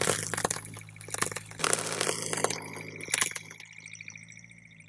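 Car tyre rolling over a row of puffed rice balls on asphalt, crushing them in a rapid run of crunches and crackles that thin out and fade over the last second or so.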